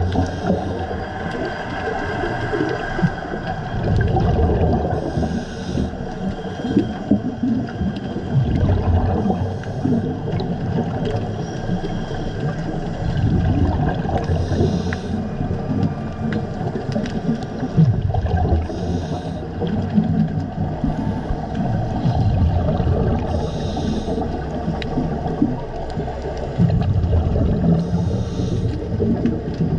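Scuba diver breathing through a regulator underwater, heard as a muffled rumble with a gurgling rush of exhaled bubbles about every four to five seconds.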